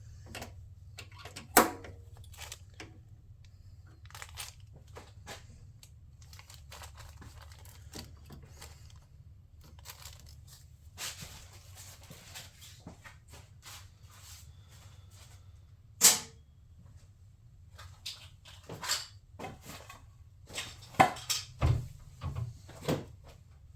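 Plastic trim push clips and car trim parts being handled and pried: scattered clicks and knocks, with a few sharp snaps about a second and a half in, around the middle, and several close together near the end.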